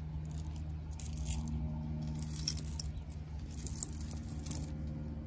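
Metal costume jewelry clinking and jangling in several short bursts as necklaces are handled and set down, over a steady low hum.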